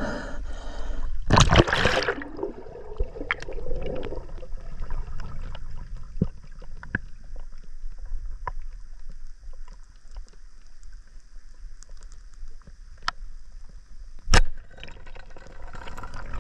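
A splash going under the river surface, then the muffled underwater sound of the river: a steady low rumble of current with scattered small clicks and one sharp knock near the end.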